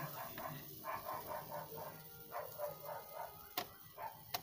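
A dog barking over and over in quick succession, about four barks a second. Two sharp clinks come near the end.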